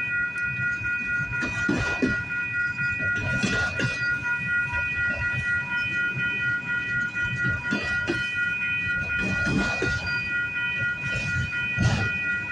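Cars of a slow-moving CP freight train rolling past, with irregular clacks of wheels over rail joints every second or two. A steady high-pitched tone runs underneath.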